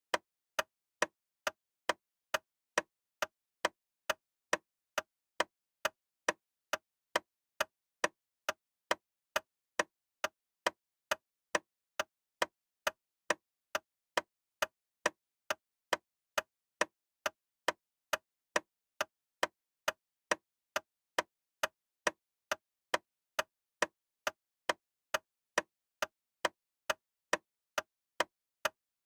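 Loud, sharp ticking at an even beat of about two ticks a second, each tick short and crisp with silence between.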